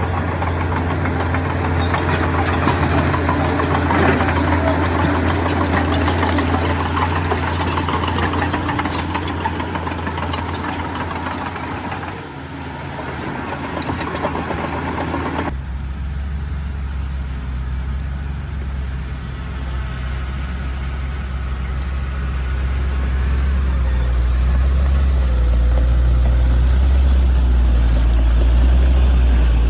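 Heavy diesel earthmoving machinery running, a steady low engine drone with rattling and scraping over roughly the first half. About halfway through the sound changes abruptly to a deeper, steadier engine drone that grows louder toward the end.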